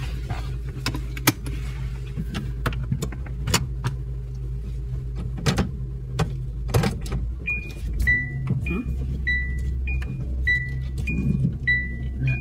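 Steady low hum of a Honda car's idling engine, heard inside the cabin, with scattered light clicks. From a little past halfway, a repeating two-note electronic chime alternates high and low, about one note every half second.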